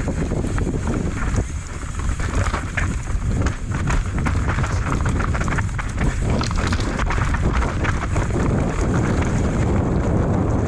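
Wind buffeting a GoPro Session's microphone during a fast mountain bike descent, with tyres running over dirt and rattling knocks from the bike over rough ground.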